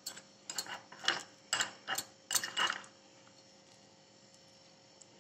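Steel spoon scraping and clicking against a small glass bowl while scooping crumbled khoya, a quick run of short scrapes about two a second that stops about three seconds in.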